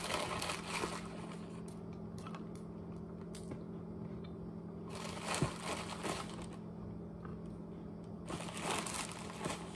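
Plastic zip-top bag crinkling in a few short bursts as crushed walnuts are pinched and shaken out of it, over a steady low hum.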